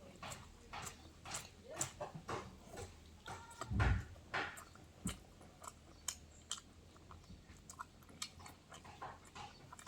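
A person chewing and eating close to the microphone: irregular wet mouth clicks and lip smacks, with a louder dull thump about four seconds in.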